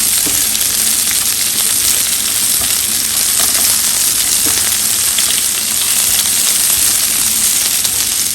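Sliced onion sizzling in hot oil: a loud, steady frying hiss.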